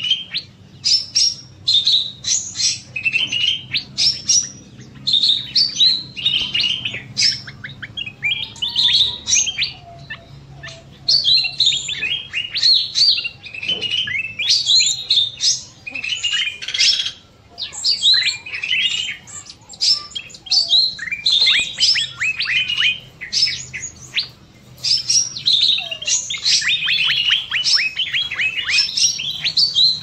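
Cucak mini bird singing at length in rapid high chirps and trills, near-continuous with only short pauses, with other small aviary birds chirping alongside.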